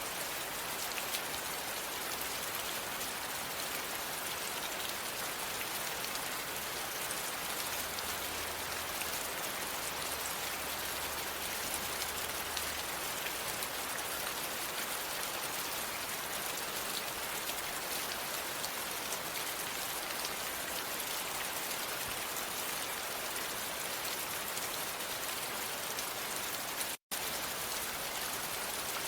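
Steady, even rain falling, with a dense patter of drops on a surface. It cuts out for a split second near the end.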